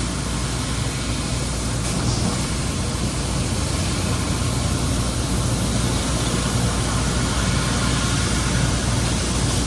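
Bystronic ByLaser 6000 CO2 laser cutter running during a cut: a steady low hum under an even hiss, with no breaks or strokes.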